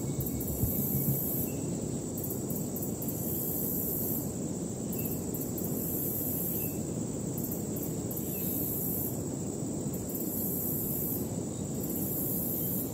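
Steady outdoor ambience: a low noise bed with a high insect buzz that comes and goes in spells of a second or two.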